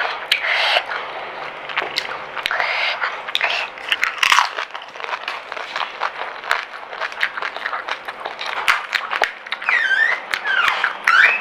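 Pani puri being eaten close up: the crisp, hollow puri shells crunch and are chewed wetly, with many short crackles. Short hissing breaths come in between, and a few brief pitched whimpers come near the end.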